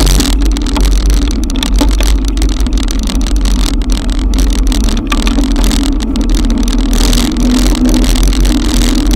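Loud rushing noise of riding through a heavy downpour: wind and rain on the camera microphone, with a steady low hum underneath.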